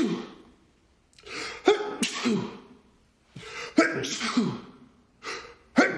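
A man's allergy sneezing fit, set off by a cat: a gasping intake of breath before each of three loud sneezes, about two seconds apart, the last one near the end.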